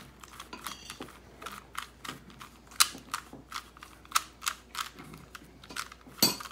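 A 3x3 Rubik's cube's plastic layers being twisted turn after turn while an algorithm is worked through, a run of quick clicks and clacks about three a second. The sharpest clacks come about three seconds in and near the end.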